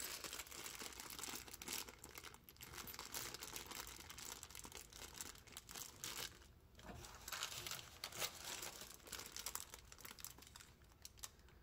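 Clear plastic packaging bags crinkling and rustling in the hands as they are handled and unwrapped, a dense crackle of small rustles with a brief pause about six and a half seconds in.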